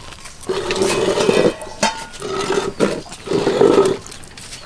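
An animal calling in a few drawn-out calls of half a second to a second each, with a few light clicks between them as boiled eggs are peeled.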